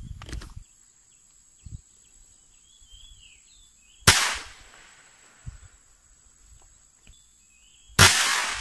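Toy matchstick gun (pistol mancis) firing twice, about four seconds apart: each shot is a sharp bang that trails off quickly. Birds chirp faintly between the shots.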